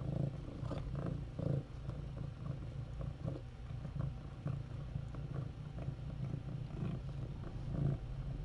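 Cat purring steadily, with a few soft scuffling sounds as the mother cat licks and grooms her wriggling kitten.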